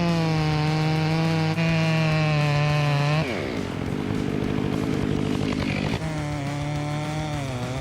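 Chainsaw engine running at high speed for about three seconds. It then drops into a rougher, lower sound and picks back up about six seconds in, its pitch wavering as the chain cuts into wood.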